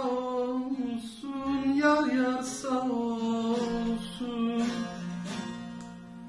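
Bağlama (long-necked Turkish saz) played as the folk song's closing phrase, its plucked notes fading away toward the end.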